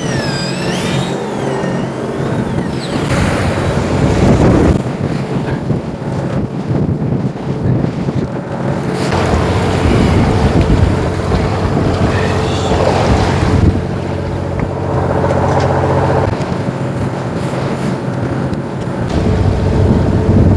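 A fishing boat's engine runs with a steady low hum. Wind and sea noise rush over the open deck, swelling louder several times.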